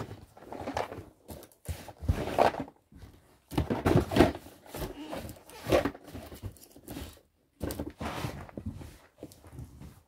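Irregular rustling, scraping and knocks as cardboard board-game boxes are shifted and clothing brushes right against a phone's microphone.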